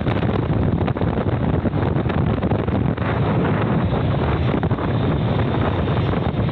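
Wind buffeting the microphone of a camera riding on a moving bicycle: a steady, loud rushing.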